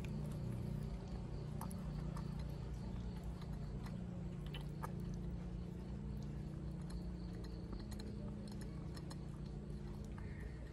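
Baby macaque drinking from a small plastic drink bottle, with faint scattered sucking and mouth clicks over a steady low background hum.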